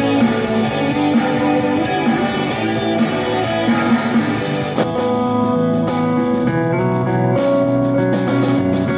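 Guitar-led rock music playing through a pair of Sony CFS-1000 boombox replacement speakers, steady and loud, with little deep bass.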